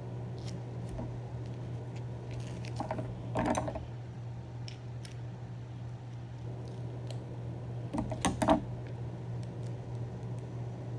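A small plastic sauce packet being handled, crinkled and squeezed, giving scattered light clicks and two louder crinkling rustles, one about three seconds in and one near eight seconds. A steady low hum runs underneath.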